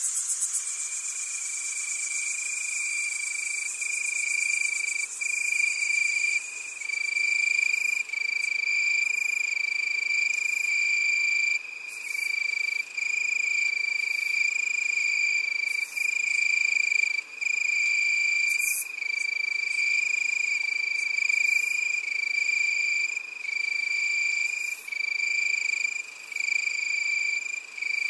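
Nature ambience of a calling-animal chorus: one continuous shrill tone with brief dips every few seconds, and faint clicks scattered through.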